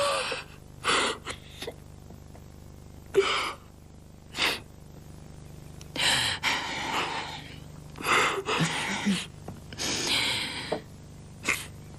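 A woman sobbing in a string of gasping, broken breaths, some short and sharp, a few longer and drawn out.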